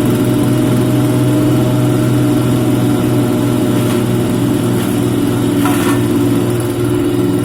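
Engine-driven grass chopper machine running steadily, a loud even hum, with brief rushing bursts about four and six seconds in.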